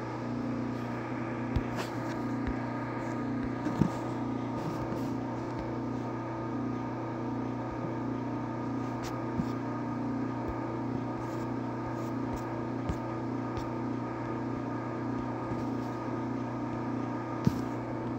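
A steady low mechanical hum, with several pitches layered together and a faint regular throb, from a motor or engine running without a break; a few faint clicks sound over it.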